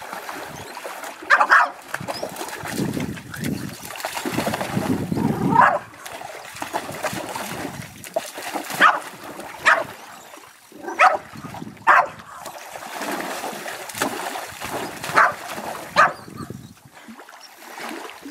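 French Bulldog barking excitedly in short, sharp barks every second or two while splashing through shallow water.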